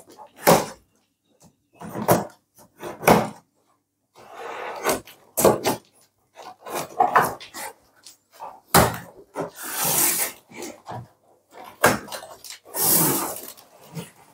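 Packing tape and cardboard on a shipping box being cut open with a hand cutting tool. It comes as a series of short scraping and rustling strokes, with two longer tearing rasps in the second half.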